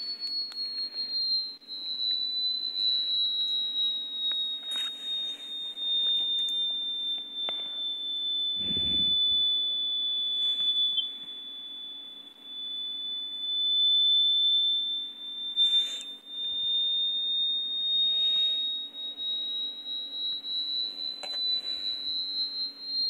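High-frequency pure tone played from a small Bluetooth speaker, sliding slowly down in pitch and then back up over about twenty seconds. A dull thump comes about nine seconds in.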